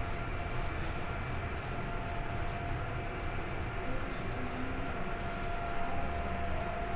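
Steady low rumble of a cruise ship's machinery and ventilation heard inside the vessel, with a few faint steady tones.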